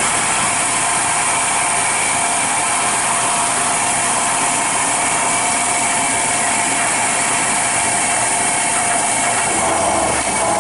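CNC milling machine running steadily while it cuts the last holes of a collet holder, a loud, even whine and hiss. About ten seconds in, the pitch shifts slightly and a low hum comes up as the cut changes.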